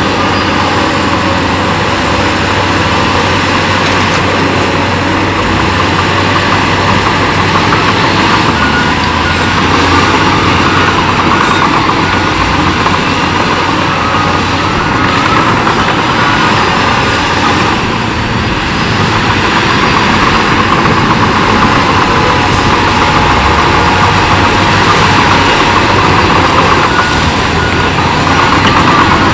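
Heavy diesel earthmoving machinery running steadily under load, with a faint repeating beep in the last several seconds.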